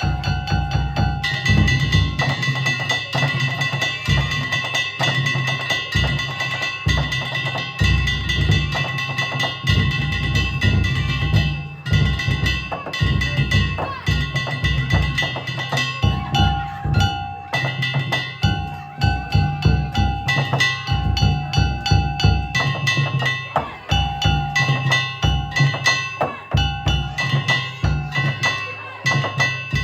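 Danjiri bayashi, the float's festival music: taiko drums beaten in a fast, driving rhythm with metallic kane gongs, and high tones held over the drumming throughout.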